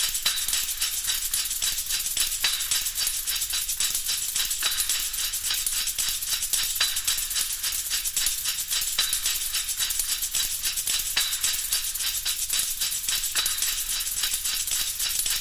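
Dense, steady hiss with a fast crackling flutter running through it, mostly in the high range with little bass, like a static-noise track.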